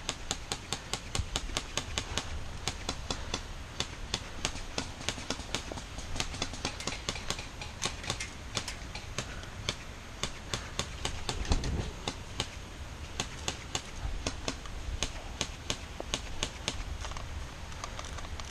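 Rapid, uneven clicking, several sharp clicks a second, over a low rumble.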